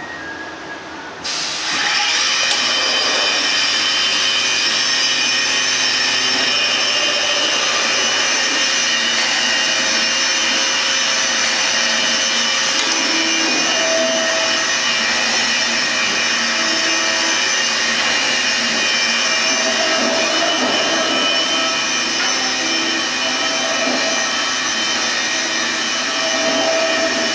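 Techno Isel CNC router running: a loud, steady machine whine with many high tones over a hiss starts suddenly about a second in, with lower tones coming and going over it.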